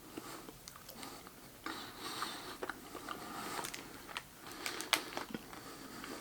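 A person chewing a chocolate-coated Baumkuchen piece close to the microphone: irregular, moist mouth noises with a few sharp clicks, the sharpest near the end.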